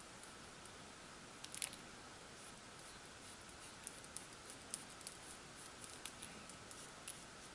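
Faint scratchy ticks and scrapes of a sponge-tipped PanPastel applicator knife working pastel onto paper, over a steady faint hiss. There is a quick cluster of ticks about a second and a half in, then scattered single ticks through the rest.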